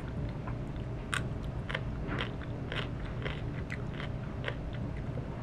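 Crunchy food being chewed up close, with a sharp crunch roughly every half second.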